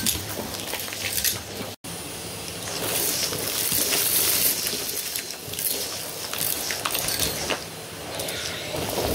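Numatic Henry Extra cylinder vacuum cleaner running, its floor head pushed over a shag carpet and sucking up sequins, buttons, beads and glitter, which rattle and click up the wand in quick bursts over the steady motor hum. The sound drops out for an instant about two seconds in.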